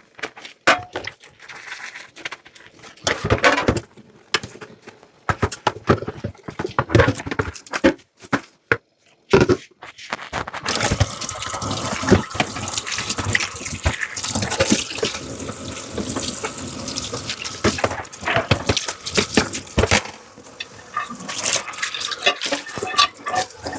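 Dishes being washed at a kitchen sink: scattered clinks and knocks of dishware for about the first ten seconds, then the tap running steadily for about ten seconds, then more clinking near the end.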